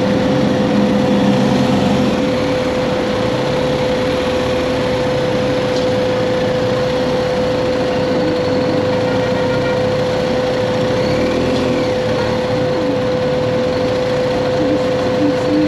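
BMW GS Adventure motorcycle engine idling in city traffic, with other vehicles passing and a steady hum under it.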